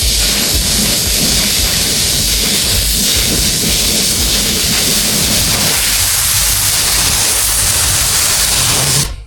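High-pressure cleaning spray hissing steadily, stopping abruptly about nine seconds in.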